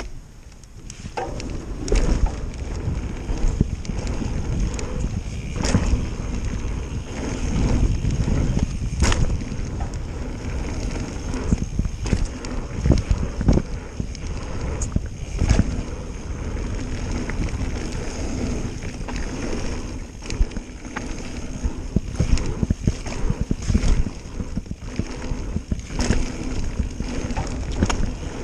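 A mountain bike ridden down a dirt trail: steady wind rumble on the microphone and tyre noise, with frequent sharp knocks and rattles as the bike goes over bumps. It gets louder about a second in as the bike picks up speed.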